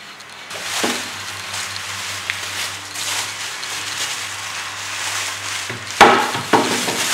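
Plastic wrapping rustling and crinkling as an aluminium pannier is pulled out of its cardboard box, with two sharp knocks close together near the end, the loudest sounds.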